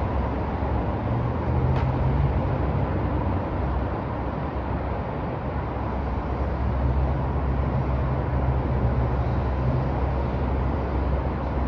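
Downtown street traffic: a steady rumble of vehicles, with a low engine drone that swells twice as heavier vehicles pass or idle.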